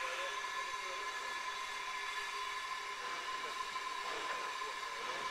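Crane hoisting a steam locomotive's frame on chains: a steady mechanical whine with a high hiss.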